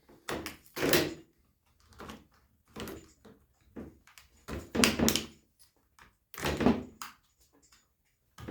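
A hand tool prying under the staples of a car door trim piece to bend them out: a series of scrapes and knocks, about one a second, several of them louder.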